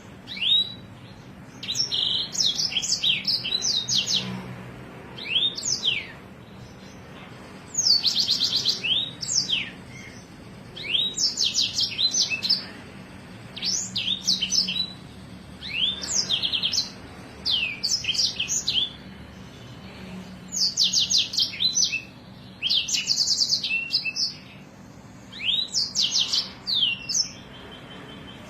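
A songbird singing in bursts of one to two seconds with short pauses between. The bursts are made of fast rolling trills and quick, sharp falling whistled notes, high-pitched. This is masteran song, the kind played to train caged songbirds.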